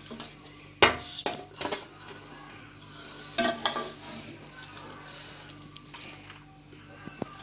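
Metal spoon scooping cooked sweet rice out of an aluminium pot, scraping and knocking against the pot a few times, with a short metallic ring about three and a half seconds in.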